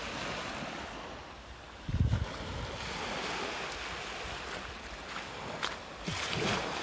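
Small waves washing up and breaking on a shingle beach, with wind buffeting the microphone in a low rumbling gust about two seconds in. A few light clicks sound near the end.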